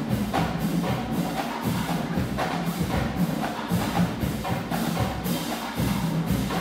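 Marching band drumline playing a cadence: a steady beat of sharp, clicky rim and drum strikes, about two a second, over a low drum and bass pulse.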